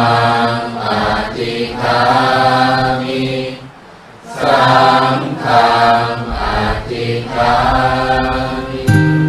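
Buddhist chanting sung by voices in long, held melodic phrases, with a short breath pause about four seconds in. Plucked-string music comes in right at the end.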